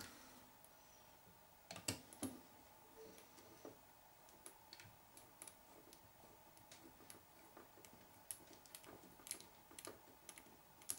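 Faint scattered clicks and ticks of a hex driver and small metal hardware as a screw is driven into the RC car's front suspension, with two sharper clicks about two seconds in.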